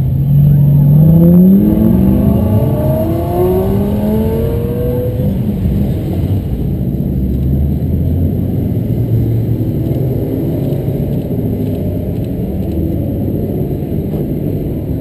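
A car engine accelerating away, its note climbing steadily for about five seconds, loudest a second or two in. It then gives way to a steady low rumble of car engines.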